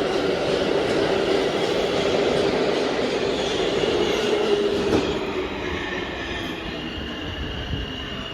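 R160A subway train running on the rails as it pulls away, a steady rumble with a thin high wheel squeal over it. The sound fades from about five seconds in as the train recedes.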